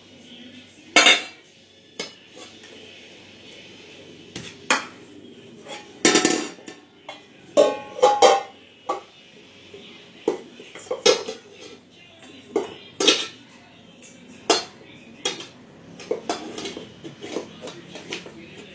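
Irregular clattering and clinking of hard objects, like dishes or cutlery being knocked about, with about a dozen sharp knocks; a couple around the middle ring briefly.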